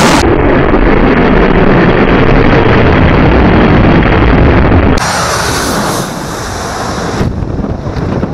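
Boeing 737 jet engines, very loud as the airliner passes low directly overhead on final approach, with wind buffeting the microphone. About five seconds in the sound drops to a softer, windy rush of the jet heard farther off on the runway.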